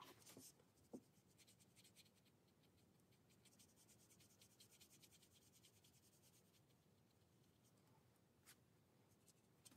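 Faint scratchy strokes of a paintbrush on watercolour paper, with a small tap about a second in and another near the end.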